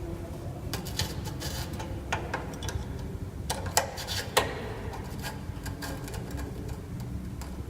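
Scattered metallic clicks and clinks of tools working at a steering rack housing as a retaining ring is pried out, with two sharper clicks about four seconds in, over a steady low hum.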